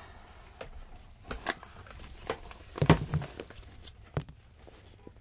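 Handling and rustling noises with scattered clicks and knocks as a person shifts about in a cramped compartment, the loudest cluster of knocks about three seconds in and another single knock about a second later.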